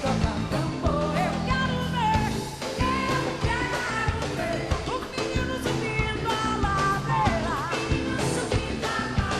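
Live band music: a samba-reggae song with a sung melody over drums, bass and guitar.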